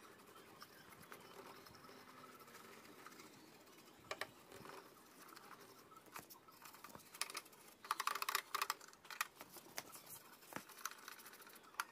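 Faint, light clicks and taps of small hard objects, scattered, with a quick flurry of clicking about eight seconds in.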